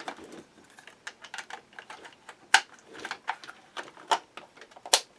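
Small plastic clicks and taps at irregular intervals from handling a toy RC excavator around its battery compartment, with two sharper clicks about two and a half seconds in and near the end.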